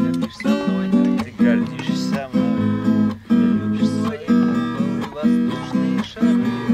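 Steel-string acoustic guitar strummed in chords, a steady rhythm of about two strokes a second.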